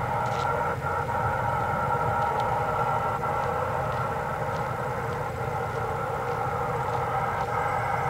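Steady roar of a burning natural-gas well blowout, gas jetting uncontrolled from a shallow gas pocket, with a few faint ticks.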